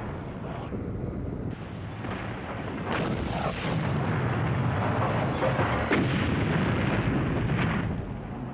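Rumbling, blast-like explosion sound effects that swell about three seconds in, with a few sharper cracks along the way, then ease off near the end.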